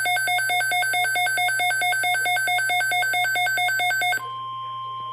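Midland WR-400 weather radio alerting: a rapid pulsed electronic beep, about five beeps a second. About four seconds in it switches to a single steady tone, the NOAA Weather Radio warning alarm tone that comes before the alert message.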